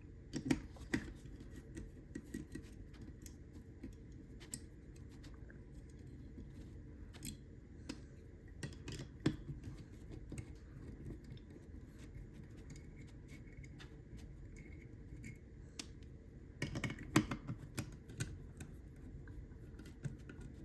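A screwdriver backing out the screws of a safe lever lock's front plate: faint metal scraping and scattered small clicks, with a run of louder clicks about seventeen seconds in.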